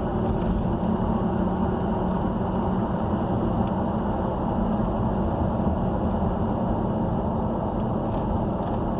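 Steady engine and road noise heard from inside a moving vehicle, with a low, even hum.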